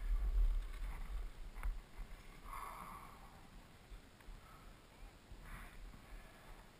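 Skis sliding and scraping over packed snow, with wind rumbling on the microphone during a downhill run. The rumble is strongest in the first couple of seconds and then eases.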